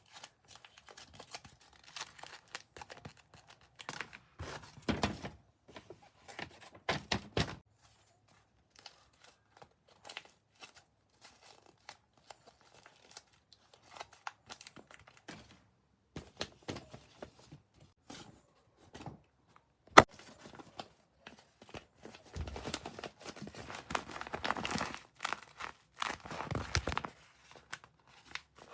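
Packaging being torn open and crinkled by hand, with scattered handling knocks. One sharp click comes about two-thirds of the way through, followed by a longer stretch of tearing and rustling near the end.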